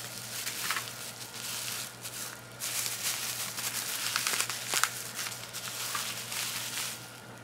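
Bubble wrap crinkling and crackling as a wrapped item is lifted out of a cardboard box and turned in the hands, with a short lull about two and a half seconds in and the sharpest crackle near five seconds in.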